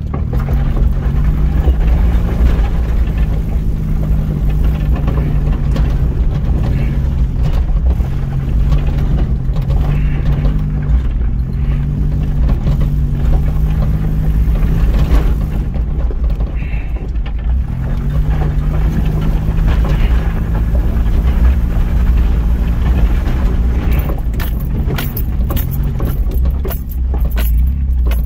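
Vehicle driving slowly on a gravel forest track, heard from inside the cab: a steady low rumble of tyres and engine, with an engine hum that shifts and dips now and then, and a run of rattling clicks near the end.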